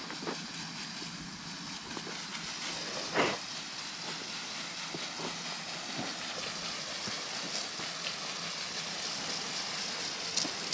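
Steel hand tool scraping along the edge of freshly poured concrete, a steady rasping hiss, with a short knock about three seconds in.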